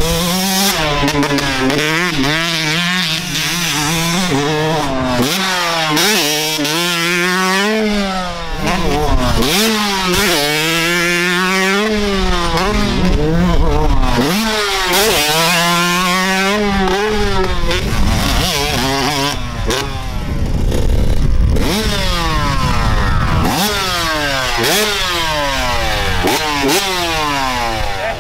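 Dirt bike engine revving hard on a motocross track, its pitch repeatedly climbing and dropping as the bike accelerates and rolls off, with several falling sweeps near the end.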